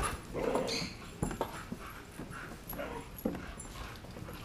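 Dogs giving a few short whines and yips, with scattered light knocks.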